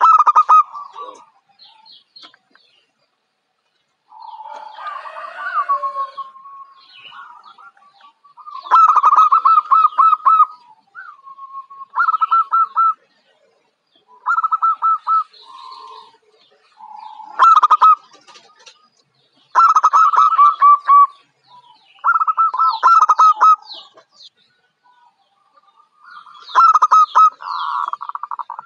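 Zebra dove (perkutut, Geopelia striata) cooing: bouts of quick, rolling staccato coos, about seven or eight of them, each a second or two long with short pauses between.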